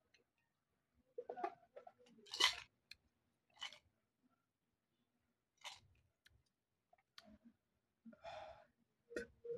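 A person drinking carbonated soda from a glass: a few soft, separate gulps and swallows about a second apart, then a breathy exhale after the drink, about 8 s in.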